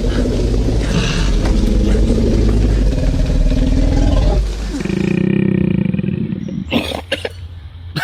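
Deep, rumbling growling roar, the kind of koala growl used for the T-Rex's roar: one long growl, then a second shorter one about five seconds in, breaking up into short sounds near the end.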